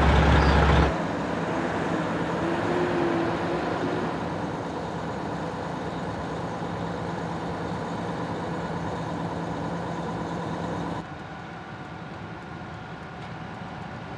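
Steady rumble of idling heavy vehicles and road traffic. A deep engine hum is loud for about the first second, then the sound drops suddenly to a quieter steady rumble, and drops again about three seconds before the end.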